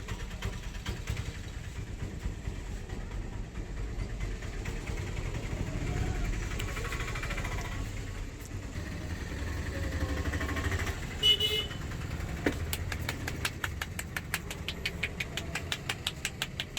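Road traffic running by with a steady low rumble and a short horn toot about eleven seconds in. In the last few seconds comes a run of quick, even taps, about five a second.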